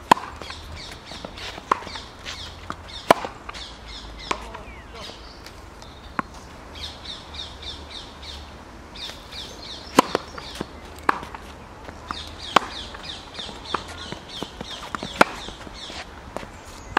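Tennis ball being struck by racquets and bouncing on a hard court: sharp pops at irregular intervals, a second or so apart. Between them a bird calls in runs of quick, repeated high chirps.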